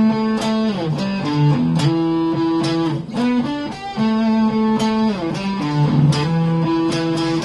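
Electric guitar playing a single-note riff: held notes with slides down in pitch between them, the riff heard twice.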